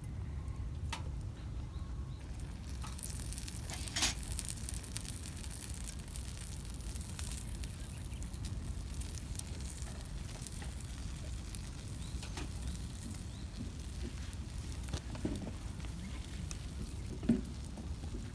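Campfire crackling with a few sharp pops, the loudest about four seconds in, and a sizzling hiss from about three seconds on.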